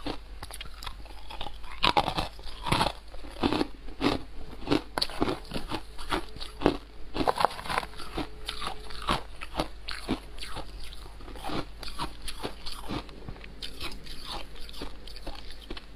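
Biting into and chewing chunks of white frosty ice close to a clip-on microphone: a steady run of crisp crunches, several a second.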